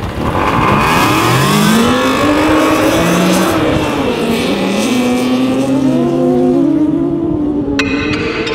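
Nissan 370Zki's 3.7-litre V6 engine revving hard as the tracked, ski-fronted roadster slides through snow. The revs climb over the first couple of seconds, then fall and rise again several times.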